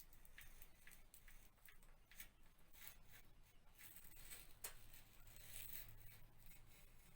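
A blade cutting through wallpaper along a piece of trim: a series of faint, short scratching strokes.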